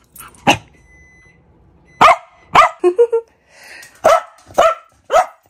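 Corgi barking: six sharp, loud barks, mostly in pairs about half a second apart.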